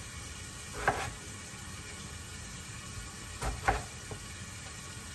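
Chef's knife chopping peeled potato on a wooden cutting board: a sharp knock about a second in, then two more close together near three and a half seconds. Under it, a steady sizzle of chicken browning in a lidded pot on the stove.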